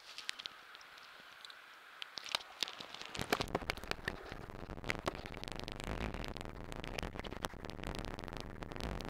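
River water heard through a camera held underwater: a crackling hiss full of small clicks and pops, louder from about three seconds in.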